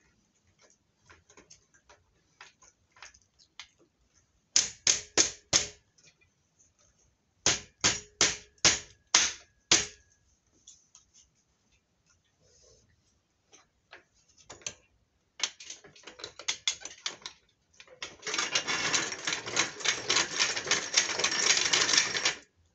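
Metal clamp-on bench vise being worked by hand, its mechanism clicking sharply in short runs of about five clicks, then rattling fast and continuously for the last four seconds or so.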